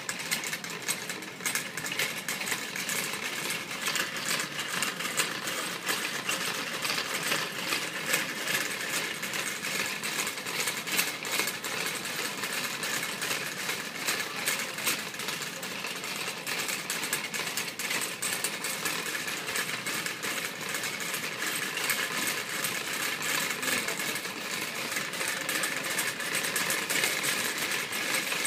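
Shopping cart rolling over a hard store floor, its wheels and wire basket rattling in a steady, dense clatter.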